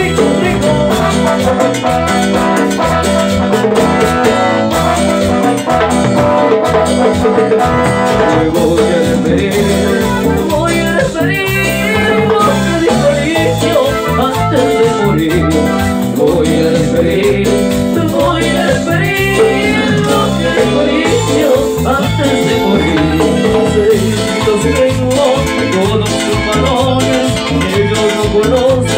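A live Latin tropical dance band playing, with bass guitar, drums and timbales, and several singers singing into microphones over a steady dance beat.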